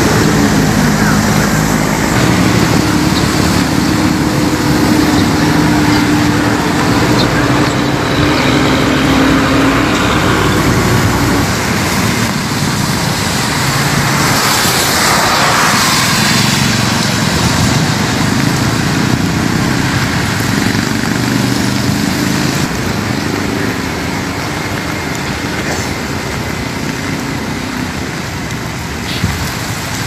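Road traffic on a wet road: steady engine hum and tyre noise, with a vehicle passing by about halfway through.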